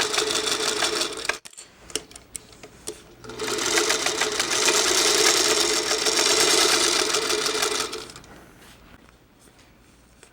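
Electric sewing machine stitching a seam through quilting fabric in two runs. The first run cuts off about a second and a half in and is followed by a few light clicks of handling. The second run starts after about two seconds and winds down near the end.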